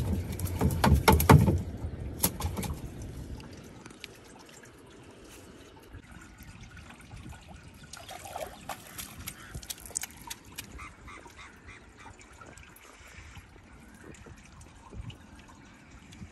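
Fish and a wet cast net handled in a canoe: a flurry of sharp knocks and thumps against the hull in the first few seconds, then quiet dripping and trickling of water as the net is drawn in from the lake.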